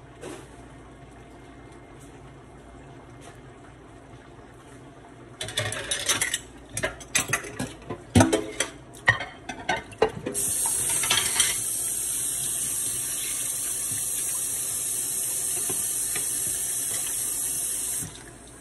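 A run of clattering knocks for about five seconds, then a kitchen tap running steadily for about eight seconds and shut off suddenly.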